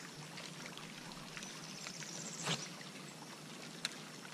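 Quiet, calm-water ambience with a faint trickle. About halfway through a fishing cast goes out: a quick whir of line peeling off the reel ends in a sharp swish. A single sharp click follows near the end.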